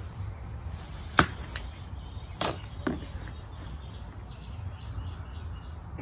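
A few sharp clicks and knocks as the hand pump's hose fitting is handled and pushed back onto the inflatable paddle board's air valve, after the air pressure in the board popped the hose off. The loudest click comes about a second in and two more follow about a second later, over a steady low rumble.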